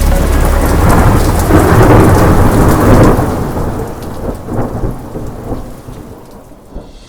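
Thunderstorm: a long roll of thunder over heavy rain, swelling for about three seconds and then slowly dying away.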